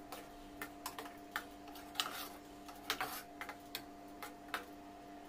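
Metal ladle stirring thick yogurt curry in a pan, knocking and scraping against its sides and bottom in irregular light clicks, a dozen or so in all.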